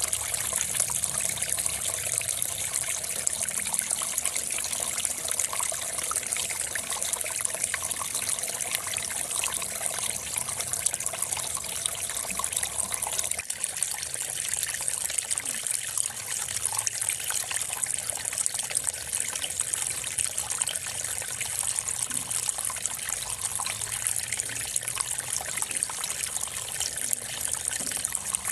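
Steady hiss of trickling water, unbroken throughout.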